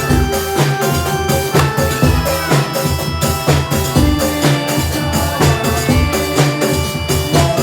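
Live jaranan music from a Javanese horse-dance troupe's band: drums beat a steady rhythm under held melodic tones.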